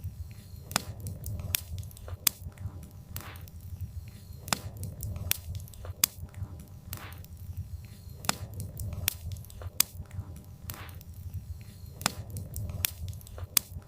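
Wood fire crackling: irregular sharp pops and snaps from burning logs over a low steady rumble.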